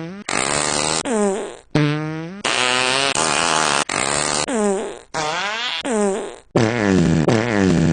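A rapid run of loud, buzzy fart noises, each bending in pitch and breaking off abruptly into the next, about a dozen in all.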